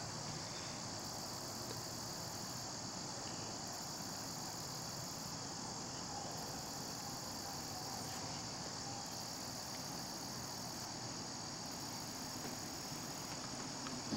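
Crickets singing in a steady, high-pitched chorus.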